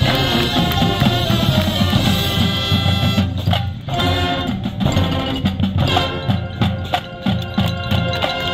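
High school marching band playing: brass and woodwinds hold sustained chords over drumline and front-ensemble percussion. About three seconds in the winds drop out briefly while the drums carry on, then a run of sharp drum strikes comes in under the returning horns.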